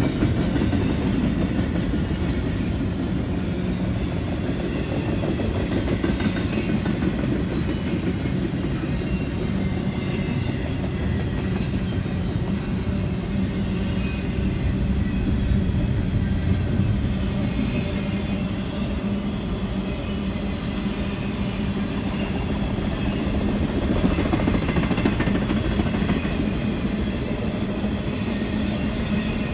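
Freight train of double-stack container well cars rolling steadily past: a continuous rumble of steel wheels on the rails, with a low steady hum underneath.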